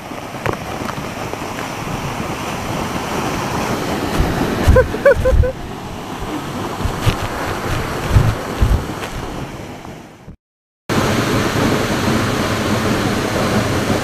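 Waterfall close by: the steady rush of water falling onto rocks, with a few low buffets of wind and spray on the microphone. The sound drops out for about half a second near ten seconds in.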